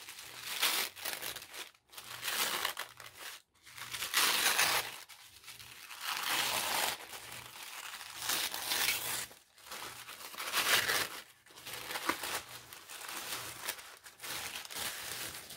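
Packaging being handled and slid off by hand: an irregular run of crinkling and rustling that comes and goes in uneven bursts.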